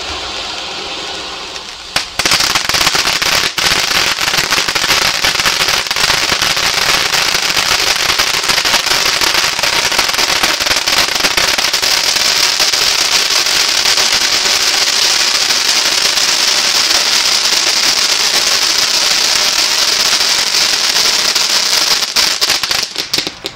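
A conic fountain firework spraying sparks with a steady hiss. About two seconds in, it suddenly gets louder as dense gold and titanium crackling sets in, a continuous mass of sharp crackles that keeps going and sputters out near the end as the fountain burns out.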